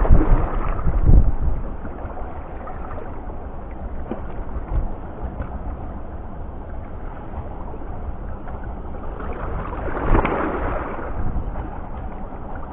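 Wind buffeting the microphone, heaviest in the first second or so, over a steady wash of wind and water. A louder rush of noise swells about ten seconds in.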